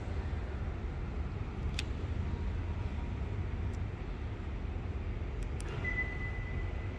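Steady low background rumble, with a sharp click about two seconds in as a flip car key's spring-loaded blade snaps out. A few faint clicks follow, and a steady high beep starts about six seconds in.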